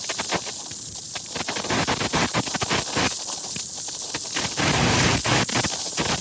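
Rushing floodwater: a steady rushing noise broken by many quick crackles and knocks.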